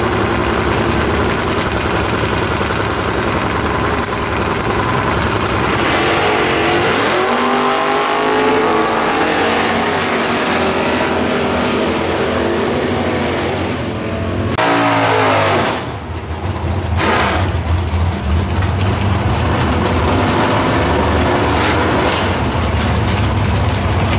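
Drag cars launching side by side and accelerating hard down the strip, the engine note climbing in pitch again and again through the gears. After a sudden break, a drag car's engine rumbles low and steady at the start line.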